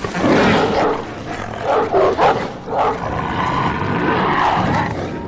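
Film sound effects of monstrous mutated dogs snarling and growling as they charge, in loud overlapping bursts.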